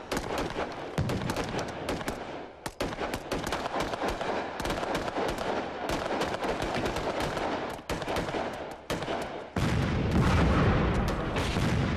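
Battle sound effects: rapid gunfire, many shots in quick succession, then an explosion about nine and a half seconds in, followed by a heavy low rumble.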